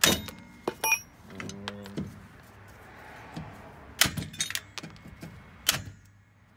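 Hammer striking the steel rear wheel hub of a Toyota Yaris: sharp metallic blows that ring briefly. A few come in the first second, a quick cluster about four seconds in, and a last one near six seconds.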